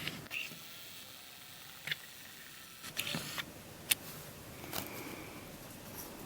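A paper leaflet being handled and turned over: a few faint rustles and clicks in a quiet room.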